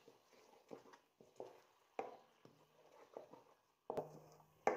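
Wooden spatula knocking and scraping against a metal wok while stirring onion paste frying in oil: soft, irregular taps, a couple a second, the loudest near the end.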